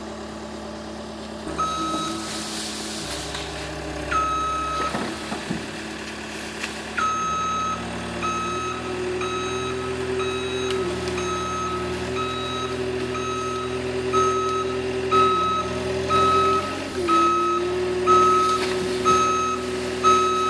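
A heavy truck's engine running while its reversing alarm sounds, first in long held tones, then as a steady beeping of about two beeps a second. The engine's pitch rises a little as it pulls.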